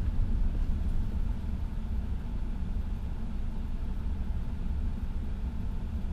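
Car engine running, a steady low rumble heard from inside the cabin.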